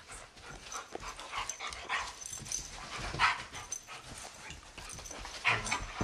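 A German Shepherd and a Doberman playing, with dog whimpers and panting and a few louder short sounds about two, three and five and a half seconds in.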